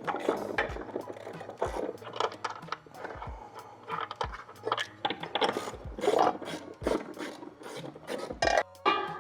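Socket ratchet wrench clicking and rasping in quick runs while 15 mm nuts are backed off, over background music with a steady beat.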